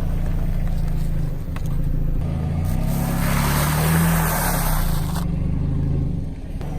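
Car engine running steadily at low speed, with a rushing noise of tyres rolling that swells in the middle and fades about five seconds in.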